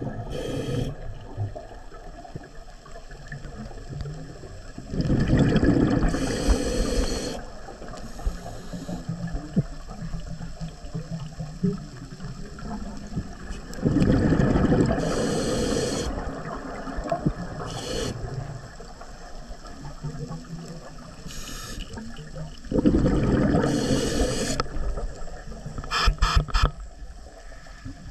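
Scuba diver breathing on a regulator underwater: three long rushes of exhaled bubbles about nine seconds apart, with fainter short hisses from the regulator in between. A few sharp clicks come near the end.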